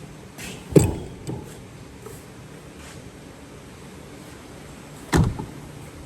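Two dull thumps about four seconds apart, the first followed by a smaller knock, over a faint steady background noise.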